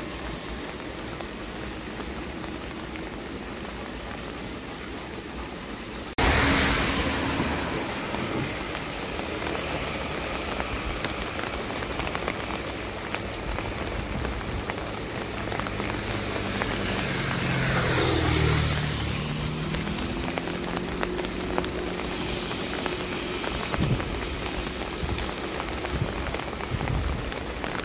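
Steady rain falling, which turns suddenly louder about six seconds in. A vehicle passes by on the road about two-thirds of the way through.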